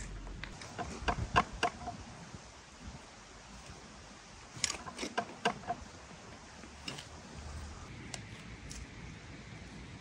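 Small hand shovel digging into loose soil in a metal wheelbarrow, making short scraping, clinking strokes in two quick bursts, about a second in and again near the middle.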